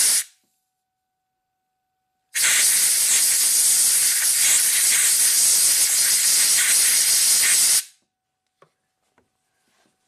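Compressed air hissing as it blows water out of a flooded, corroded cylinder head temperature sensor connector. One blast cuts off just after the start, and a second steady blast of about five seconds begins about two seconds in and stops suddenly.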